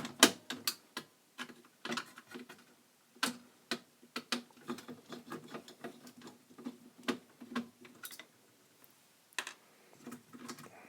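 Irregular metallic clicks and taps of hand work on a Sansui 881 receiver's chassis: a screwdriver taking out the screws of the mains filter-capacitor holders, with the loosened parts being handled.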